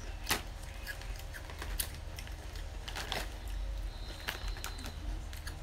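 Chips crunching as they are bitten and chewed, three sharp crunches about a second and a half apart with smaller crackles between, over a steady low hum.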